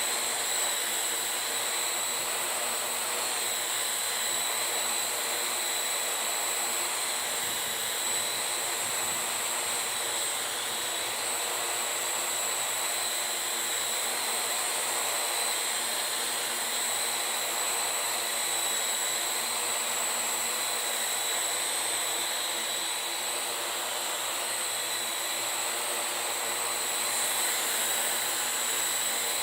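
Parrot AR.Drone 2.0 quadcopter's four electric motors and propellers running steadily in flight: a high whine over hiss, wavering slightly in pitch.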